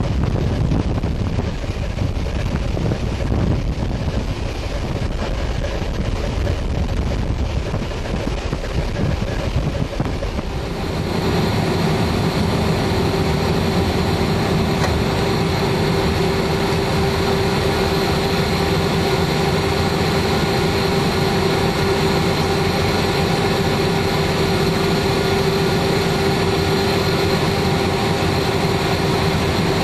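G class diesel-electric locomotive running along the line, first heard out of an open cab window, with wind buffeting the microphone over the engine's rumble. About eleven seconds in the sound changes to the steadier drone of the engine inside the cab, with a steady hum.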